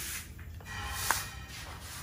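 Ladle working soup out of an aluminium pot, with one sharp clink about a second in, with faint music in the background.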